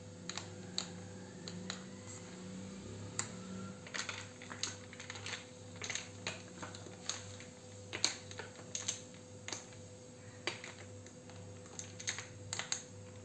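A metal spoon stirring iced drinks in tall glasses: many light, irregular clinks and clicks of the spoon against the glass and the ice.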